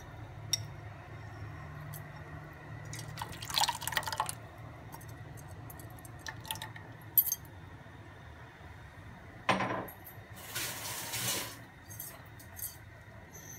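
Thick liquid mixture being poured by hand from a bowl into a steel pan in two short stretches several seconds apart, with scattered light clinks of steel vessels.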